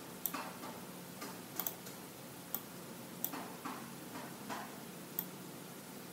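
Computer mouse clicks, sharp and irregularly spaced, with a quick double click about a second and a half in, and softer taps in between.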